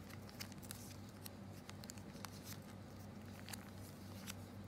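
Small plastic zip bags of pills handled and shuffled by hand: scattered light clicks and crinkles of the plastic, over a faint steady low hum.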